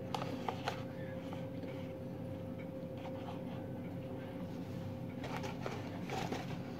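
Clicks and scrapes of a plastic straw being used to scoop and eat cornflour, with a cluster of scraping against the cardboard cornflour box near the end. A steady faint hum runs underneath.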